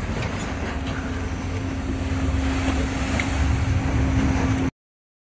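A tour catamaran's engines run steadily, giving a low rumble with a steady hum over it. The sound cuts off abruptly near the end.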